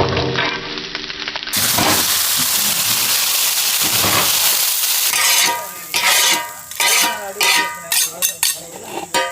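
Squid pieces sizzling as they fry in oil on a tawa. From about five seconds in, a metal spatula scrapes and stirs them in a run of separate strokes that ring against the pan.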